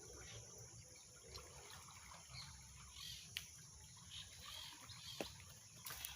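Faint outdoor background: a steady high insect hiss with scattered faint chirps, and two sharp clicks, one about three and a half seconds in and one near five seconds.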